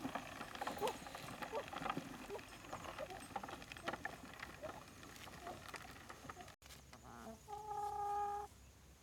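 Chickens clucking: many short, scattered clucks and clicks. After a sudden break, a single steady held tone lasts about a second near the end and is the loudest sound.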